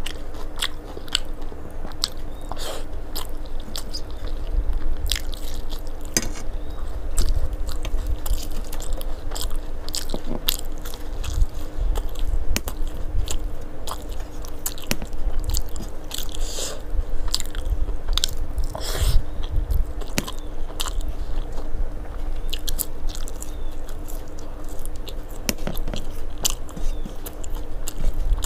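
A person chewing and biting mouthfuls of rice and vegetables eaten by hand, with many small crunches and clicks throughout.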